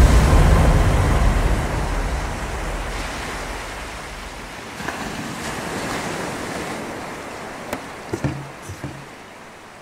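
Sea surf washing onto a beach, a steady rushing noise that fades out gradually. A few soft knocks come near the end.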